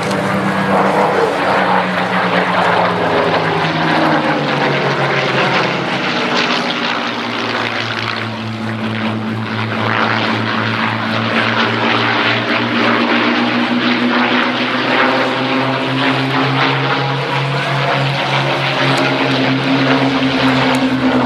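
Two Supermarine Spitfire Mk.IXs' Rolls-Royce Merlin V12 piston engines running as the pair flies past in formation. The engine note falls in pitch over the first few seconds, holds steady, then rises slightly near the end.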